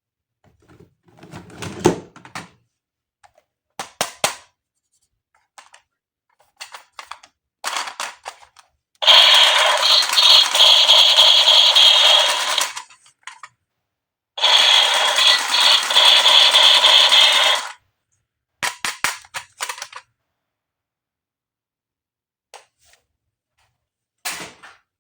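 Toy gun firing in two long bursts of about three and a half seconds each, loud with a steady high ring through them. Short plastic clicks and rustles of handling come before, between and after.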